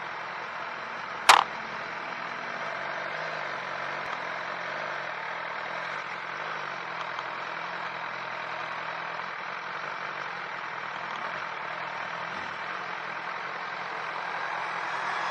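Motorcycle engine running at low speed, with an even rushing noise over it, and one sharp click about a second in.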